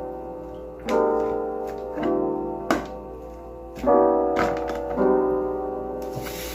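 Background lo-fi piano music: soft chords struck and left to fade, with a sharp click near the middle.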